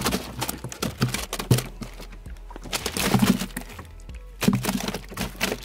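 Clattering knocks and thuds from a plastic ice chest being opened and a crappie dropped in among the ice inside.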